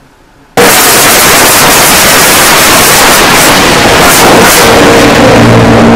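Stock car racing engines at speed, very loud and harsh, starting abruptly about half a second in; near the end a steady engine pitch comes through the noise.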